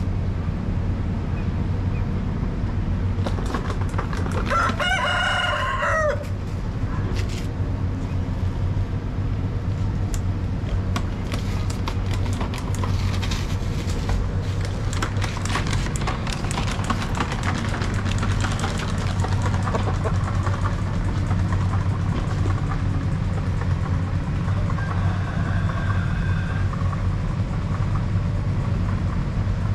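Rooster crowing once, about four seconds in: one call of about two seconds. A steady low rumble runs underneath.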